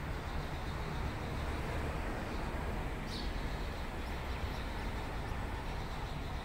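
Steady low rumbling background noise, with one brief high chirp about three seconds in.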